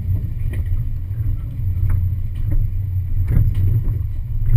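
Off-road 4x4's engine running low and steady at crawling speed over rocks, with scattered knocks and clicks from the tyres and body working over the rock ledges; the loudest knock comes about three seconds in.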